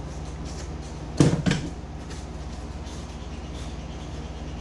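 Air conditioner running with a steady hum. About a second in, two sharp knocks come a third of a second apart, the loudest sounds here.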